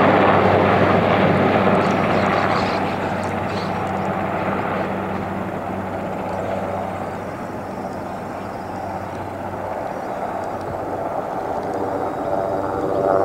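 Military aircraft engine noise: a steady low hum under a broad rushing noise that fades through the middle and builds again near the end.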